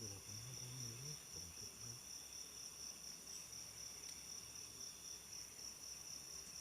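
Night insects, crickets among them, trilling in a steady chorus, one continuous high-pitched ringing.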